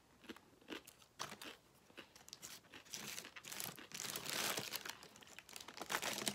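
Crunching of a thin tortilla chip being bitten and chewed in the first couple of seconds, then a food wrapper crinkling and rustling as it is handled, densest about three to five seconds in.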